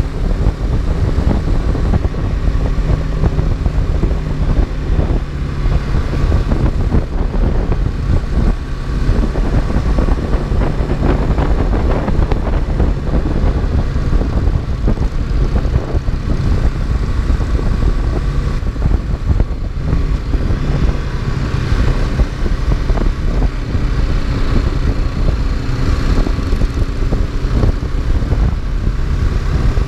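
Motorcycle engine running at a steady road speed, its even hum mixed with the rush of wind over the microphone.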